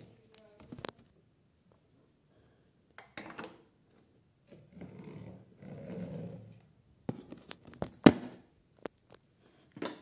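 Water and laundry sloshing in the turning drum of an AEG Lavamat toy washing machine, with a soft rushing stretch in the middle. Several sharp clicks and knocks come from the toy, the loudest about eight seconds in.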